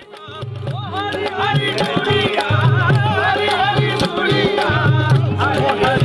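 Rajasthani folk music starts up: hand drums keep a steady beat under a wavering, ornamented melody, growing louder over the first second.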